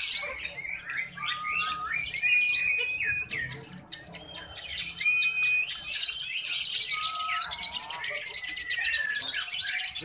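Many caged lovebirds chirping in a fast, dense run of high chirps, with a few clear, steady whistled notes held for about a second each.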